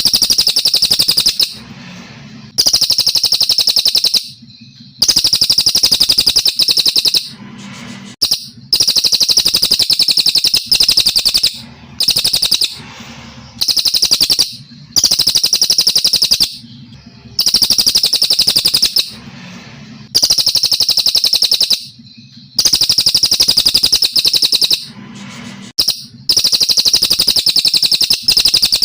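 Brown cililin singing: loud, rapid trilled phrases, each lasting one to two seconds, repeated over and over with short pauses between them.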